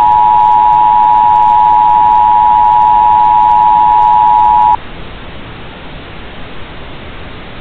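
Emergency Broadcast System attention signal: a loud, steady two-tone alarm that cuts off abruptly almost five seconds in, leaving only a steady hiss.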